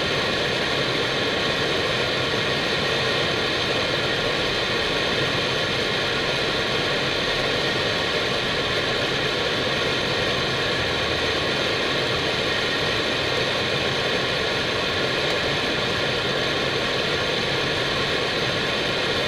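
Steady rushing cockpit noise of an Airbus A319 on approach, even and unchanging, with a few faint constant tones in it.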